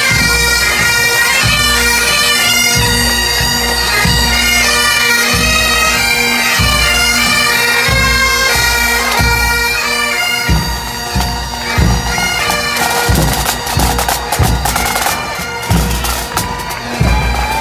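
Highland bagpipes of a marching pipe band playing a tune over their steady drones, with a bass drum keeping an even beat. About two thirds of the way through, the pipes fade back and the band's snare drums take over as they pass close by.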